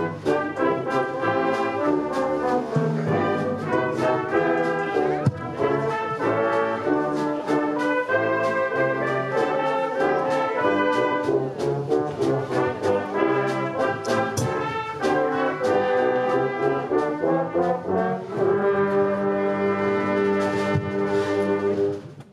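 Brass ensemble music, ending on a long held chord that fades out near the end.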